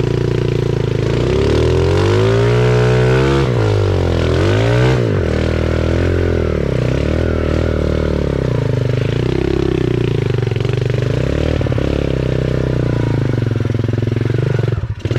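Mini dirt bike's small engine running under way, its revs rising and falling repeatedly as the throttle is worked, with a brief drop in revs near the end.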